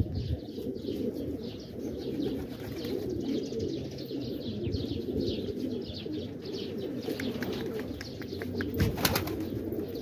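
A flock of domestic pigeons cooing together in a steady, overlapping murmur, with scattered short high chirps over it.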